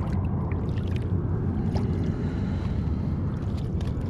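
Steady low wind rumble on the microphone, with a few faint splashes and ticks from a hooked spotted bay bass thrashing at the water's surface beside a float tube.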